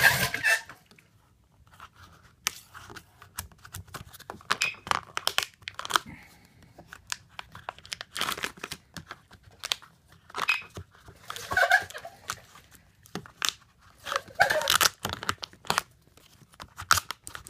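Squeegee rubbing matte black vinyl wrap film down around a car door handle: irregular scraping and crinkling strokes, some short, some longer.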